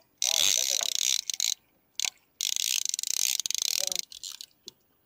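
Fishing reel clicking rapidly in two spells of about a second and a half each, both stopping abruptly.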